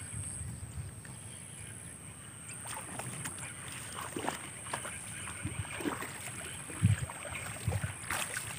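Fishing lure splashing as it is retrieved across the surface of a pond, with irregular clicks from the reel and rod, and a few low thumps in the second half.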